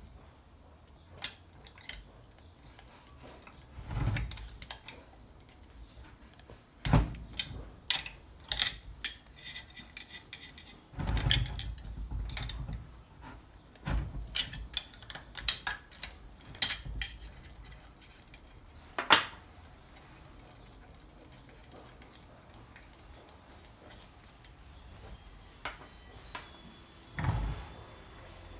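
Irregular metallic clicks and clinks of an open-end spanner working the outlet bolts off a stainless steel screw pump, with several duller knocks of tools and parts being set down on the workbench.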